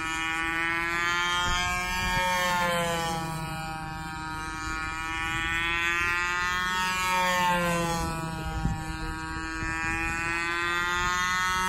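Radio-controlled model airplane's engine and propeller droning in flight, one steady pitched tone whose pitch slowly sways up and down a couple of times as the plane passes back and forth.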